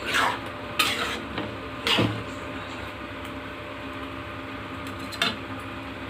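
A metal spatula scraping and clanking against a kadai while it stirs a thick potato-and-eggplant curry. There are three strokes in the first two seconds and one more about five seconds in, over a faint steady sizzle from the pan.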